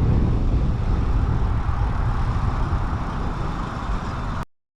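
Steady rumbling wind and road noise heard from a bicycle riding the pathway, with road-traffic noise mixed in. The sound cuts off suddenly near the end.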